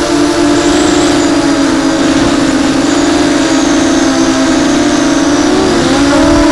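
Onboard sound of a small FPV racing quadcopter's four brushless motors (Babybeast v2) spinning 6-inch propellers: a steady buzzing whine that rises in pitch near the end as the throttle is pushed.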